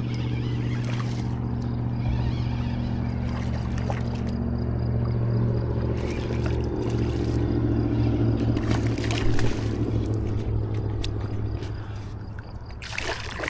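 A boat engine running with a steady low hum. Near the end there is splashing.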